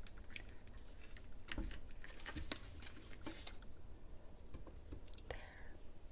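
Spoon scooping soft jelly pieces from one container into another, with scattered light clicks and taps of the spoon against the containers.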